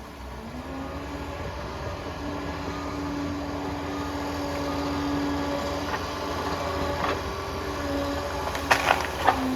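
Liebherr PR 746 crawler dozer's diesel engine running steadily under load with a held whine, and a few sharp knocks near the end.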